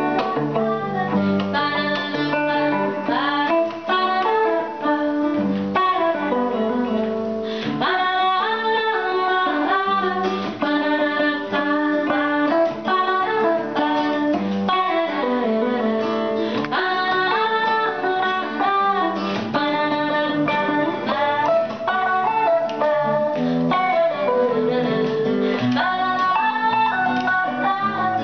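An acoustic guitar and an electric guitar played through a small amplifier, together picking the melody and chords of a Cuban trova song.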